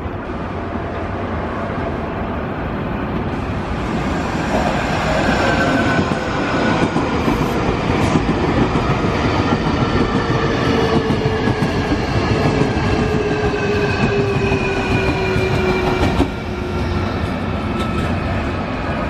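Nankai 8300 series electric train running past at close range, its motor whine falling steadily in pitch as it slows, over the rumble of wheels on rail. Near the end the sound drops abruptly and another train is heard approaching.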